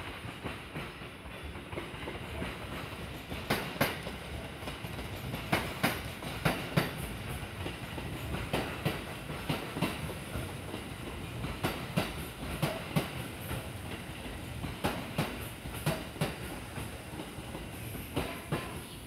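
Kintetsu electric train running through the station, with a steady rumble and clusters of sharp wheel clacks as its wheelsets cross rail joints and points.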